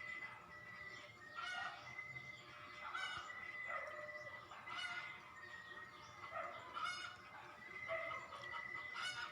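Fowl calling repeatedly, a short call about once a second, over a steady high-pitched tone that keeps breaking off.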